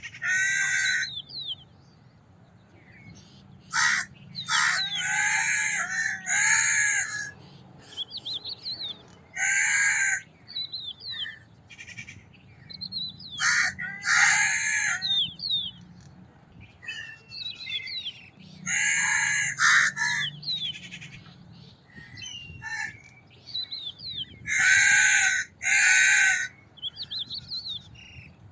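Crows cawing: loud harsh caws every few seconds, singly and in twos and threes, with short high chirps from smaller birds in between.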